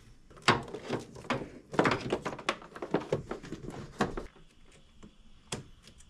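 Hands handling rubber vacuum hoses and plastic fittings in an engine bay: a quick run of clicks, knocks and rattles for about four seconds, then quieter with one more click near the end.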